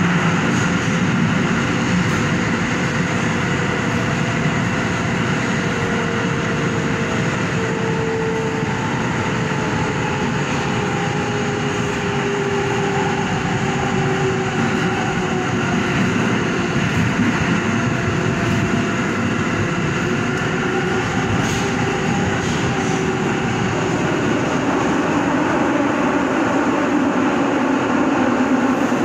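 R188 subway train running through a tunnel, heard from inside the front car: a steady, loud rumble of wheels on rail, with faint tones that slowly slide in pitch.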